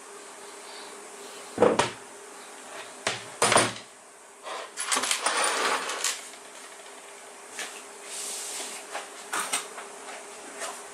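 Workshop handling of tools and motor parts: a few sharp knocks and clunks, then a couple of seconds of rattling and rustling, then lighter clicks, over a faint steady hum.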